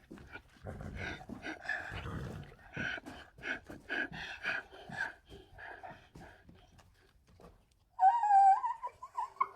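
Donkey braying: a run of short, breathy pulses, about three a second, then a high drawn-out pitched call starting about eight seconds in.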